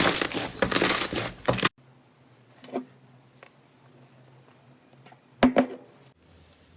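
Slime being squeezed and pressed, giving a dense crackling, crunching sound that cuts off abruptly after a second and a half. Then a quiet stretch with a faint low hum and a couple of soft clicks.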